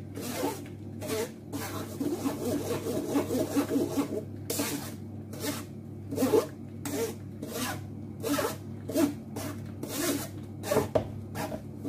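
Metal spoon scraping and pressing wet blended potato against a wire-mesh strainer in repeated strokes, about two a second, squeezing the water out of the potato pulp.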